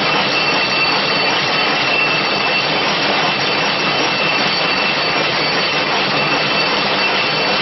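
Double-twisted barbed wire machine running at speed, its pulleys and twisting spool spinning: a loud, steady mechanical whir with a high-pitched whine.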